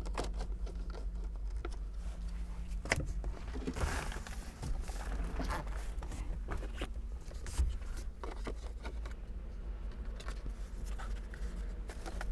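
Hard plastic trim cover being slid and pressed into place, with scattered clicks and a scraping rub about four to six seconds in.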